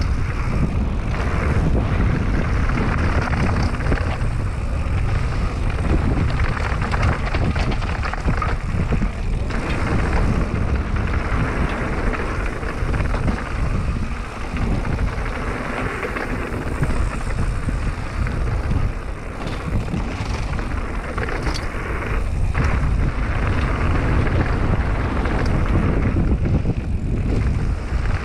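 Mountain bike rolling fast down a loose gravel and dirt trail: a steady rumble of the tyres over dirt and stones, with wind on the microphone and short clatters from the bike over bumps.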